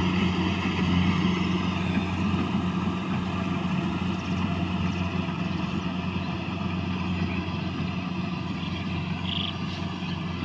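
Farm diesel engine running steadily at constant speed, a continuous low drone that does not rise or fall.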